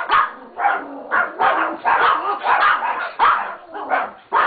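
Pomeranian barking in a rapid, unbroken run of sharp barks, about two a second. This is the agitated barking the dog does when its owner leaves for work.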